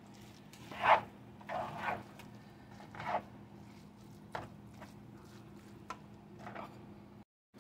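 Spatula scraping and tossing fried rice in a frying pan, in short irregular strokes, the loudest about a second in, with a steady low hum underneath.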